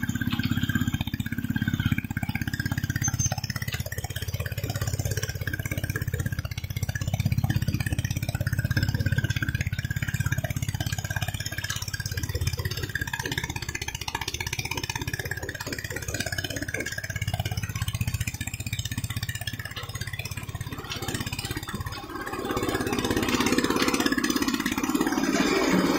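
Small tracked piling rig's engine running steadily as the machine travels and works. It grows louder near the end as the soil-caked auger is raised.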